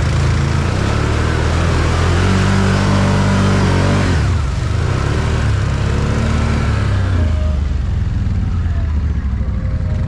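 Can-Am Outlander 1000 ATV's V-twin engine under load, revving up, dropping back sharply about four seconds in, then revving up again before easing off.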